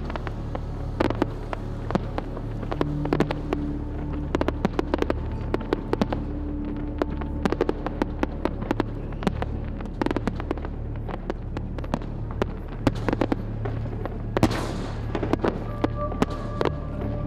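Aerial firework shells bursting in rapid succession: dozens of sharp bangs and crackles, over background music with held tones.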